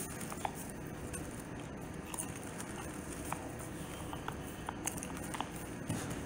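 Steady background hiss with scattered light taps and clicks.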